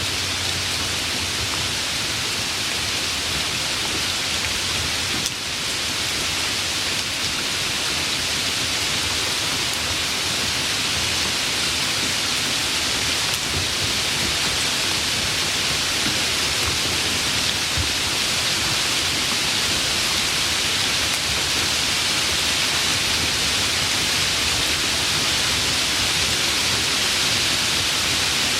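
Steady rain, an even hiss with no separate drops standing out.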